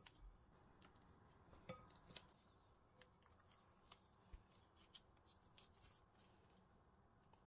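Near silence with faint, scattered soft clicks and scrapes from a silicone spatula folding thick whipped cream in a ceramic bowl. Two slightly louder taps come about two seconds in.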